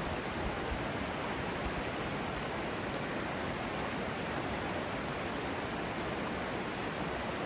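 Steady, even rush of a mountain trout stream's flowing water.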